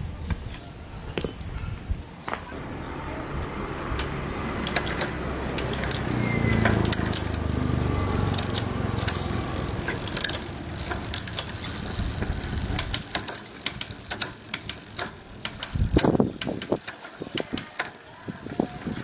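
Bicycle drivetrain spun by hand-turned pedals: the chain runs over the Shimano multi-speed freewheel and Tourney rear derailleur with a steady whirring hum and repeated sharp clicks. The hum builds over the first few seconds and falls away about two-thirds through, leaving scattered clicks.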